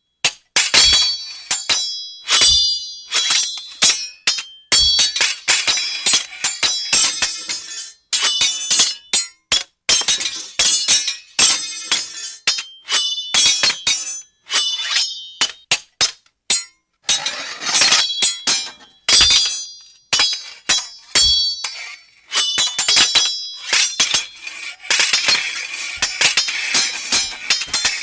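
Steel swords clashing in a rapid series of strikes at irregular intervals, each hit ringing with high metallic tones, a few with a low thud.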